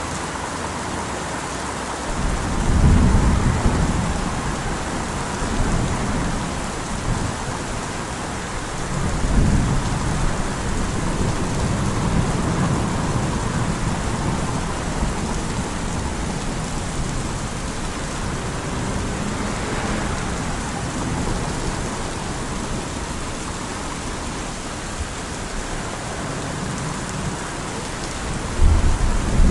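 Steady rain with rolling thunder: deep rumbles swell about two seconds in, again near ten seconds, and once more near the end.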